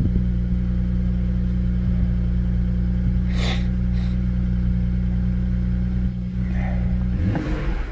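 2010 BMW 3 Series engine idling steadily, just started, with two brief high-pitched sounds about three and a half seconds in and a short rise in engine speed near the end.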